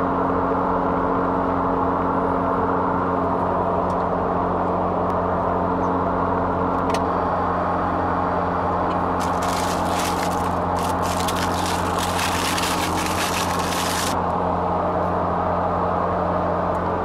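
Steady engine and road drone inside a moving vehicle's cabin. For about five seconds in the middle, a paper bag crinkles and rustles as a croissant is pulled out of it.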